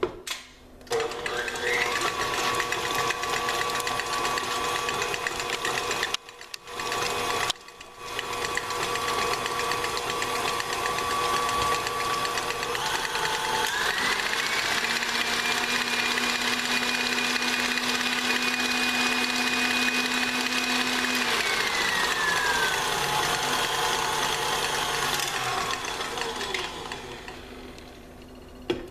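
KitchenAid Classic Plus stand mixer running, its wire whip beating cream cheese and egg yolks in the steel bowl. The motor cuts out briefly twice early on. About halfway through, its whine steps up in pitch as the speed is turned up, then slides back down, and the mixer stops near the end.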